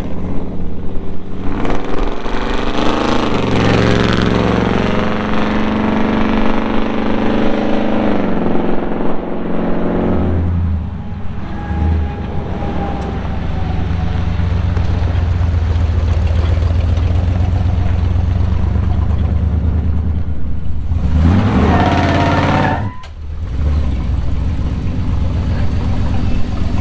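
Supercharged engine of a Chevrolet tow truck driving and accelerating. It revs up with rising pitch about two seconds in, runs steadily, then revs up again near the end and drops off sharply.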